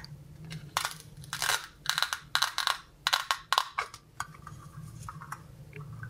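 Velcro tearing as a plastic toy knife pulls the two halves of a toy pear apart: several short, crackly rips over about three seconds.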